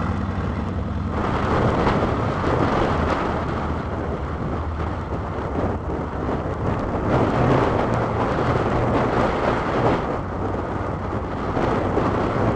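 Harvard AT-6D's nine-cylinder Pratt & Whitney R-1340 Wasp radial engine powering up about a second in as the plane taxis away. Its propeller blast hits the microphone as a heavy, rough wind rumble over the engine.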